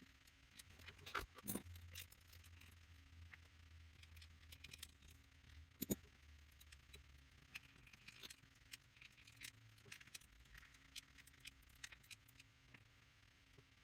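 Faint, scattered small clicks and scrapes of metal lock parts being handled as a disc detainer padlock is taken apart, over a low steady hum.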